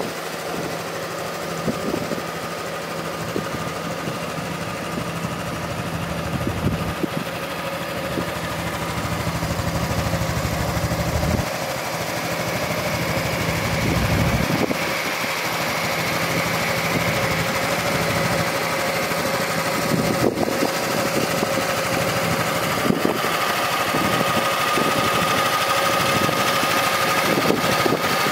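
Honda NSS300 Forza scooter's single-cylinder engine idling steadily, a little louder in the second half.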